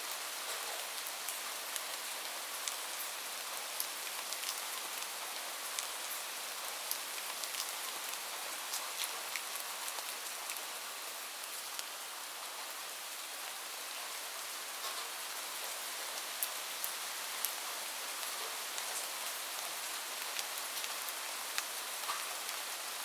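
Light rain falling steadily: a soft hiss with scattered individual drops ticking on a surface.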